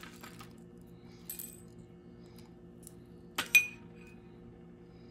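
Metal spoon clinking against a ceramic bowl while scooping puffed rice: a couple of light clinks, then a louder, ringing double clink about three and a half seconds in.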